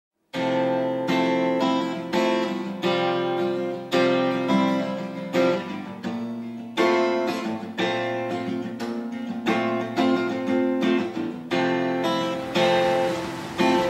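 Soundtrack music led by an acoustic guitar, chords struck about once a second and left to ring, starting just after the opening.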